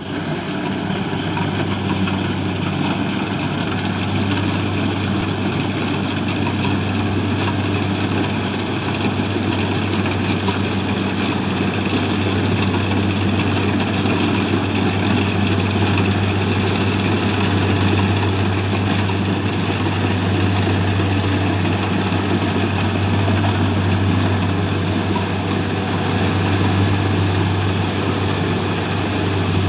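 Engine of a rice harvesting machine running steadily at a constant speed, with a strong low hum.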